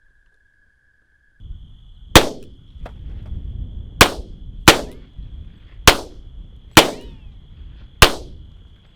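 Six gunshots at uneven intervals over about six seconds, each a sharp crack with a short tail, with a faint click between the first two.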